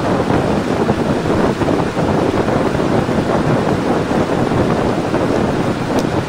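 Mountain river rushing over stones, a steady, loud wash of water noise. One short click sounds near the end.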